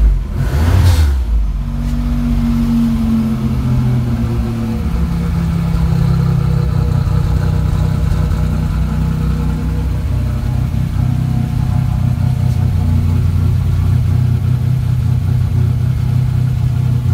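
Buick Grand National's turbocharged V6 running through a new 3-inch Pypes exhaust with Dynomax Super Turbo mufflers, after a couple of brief loud bumps in the first second. The idle sits a little higher for a few seconds, then settles about four seconds in to a steady low idle.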